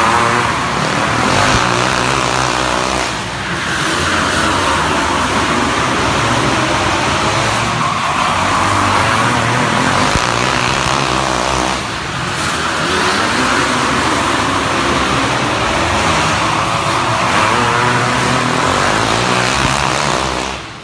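Racing go-kart engines running at speed, their pitch rising and falling in repeated sweeps every few seconds as the karts accelerate and slow.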